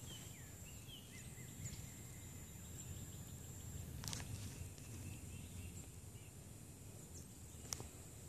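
Faint outdoor background with a steady low rumble and a thin, steady high whine. A few short bird chirps come in the first two seconds, and two sharp clicks fall about four and seven and a half seconds in.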